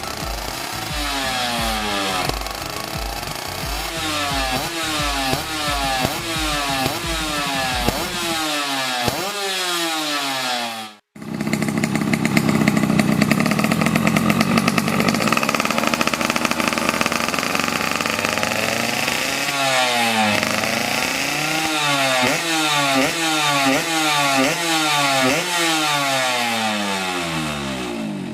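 Tuned underbone motorcycle engine revved in quick repeated blips, each rev falling away, about one and a half a second. It drops out briefly about eleven seconds in, runs at held higher revs for several seconds, then the quick blipping resumes.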